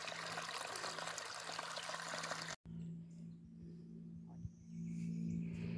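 Small woodland stream splashing over a little waterfall, a steady rushing trickle. It cuts off abruptly about two and a half seconds in, and a quieter stretch with a steady low hum follows.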